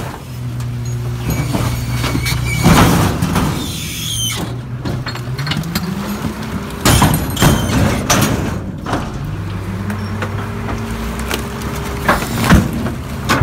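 Mack rear-load garbage truck with a McNeilus body running as its hydraulics tip a 6-yard container into the hopper; the engine revs up twice under the hydraulic load. Several loud metal bangs and clatter as the container shakes and garbage drops into the hopper.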